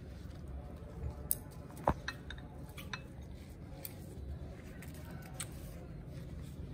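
A handful of short, sharp clicks and light clinks, like small utensils or dishes being handled, the loudest about two seconds in, over a steady low hum.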